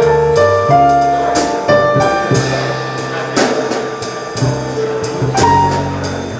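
Live jazz combo playing an instrumental passage: bass notes underneath, piano chords and runs, and a drum kit keeping time with cymbal strikes.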